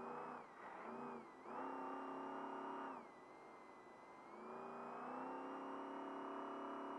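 Trophy truck's race engine running hard at high revs. The revs dip briefly twice in the first second and a half, fall away for about a second from about 3 s in, then climb again and hold high.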